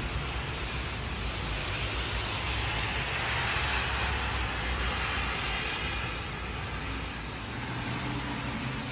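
Steady hiss of heavy rain, with a car driving past on the wet road about three to six seconds in, its tyre spray swelling and then fading.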